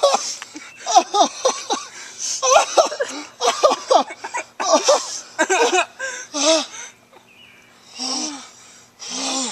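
A person's exaggerated, theatrical sobbing and wailing in short, rapid, gasping bursts, with breathy gasps near the end.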